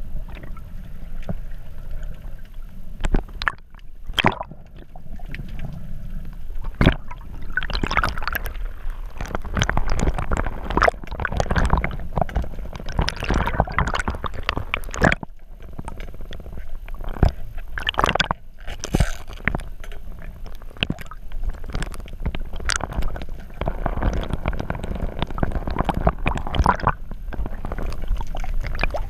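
Water sloshing and gurgling around a GoPro camera in its waterproof housing, rising and falling in waves, with many sharp clicks and knocks scattered throughout.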